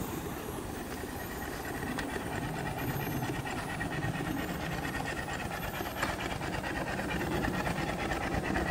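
Small two-cylinder compound vertical steam engine running steadily at about 200 rpm on boiler steam, its exhaust puffing in a rapid, even rhythm that grows slightly louder near the end.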